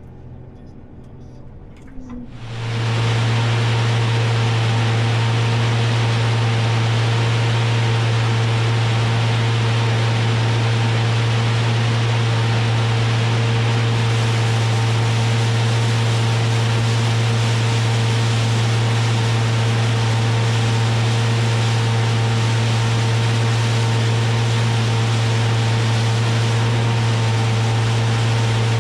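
John Deere T670i combine harvester running at a steady load: a strong, even low hum over a wide rushing noise. It comes in suddenly about two seconds in and holds unchanged.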